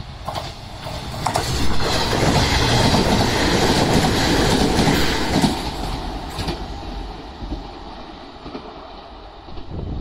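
JR 381 series Yakumo limited-express electric train running through a station without stopping. Wheel and track noise builds to its loudest for a few seconds as the cars go by, then fades as the train moves away.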